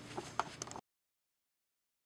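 A few light clicks and taps of hands handling things on a workbench, then the sound cuts off to dead silence less than a second in.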